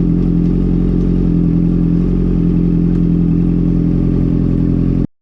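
Honda CB650F's inline-four engine running steadily through a decatted Mivv MK3 full exhaust system, then cutting off abruptly about five seconds in.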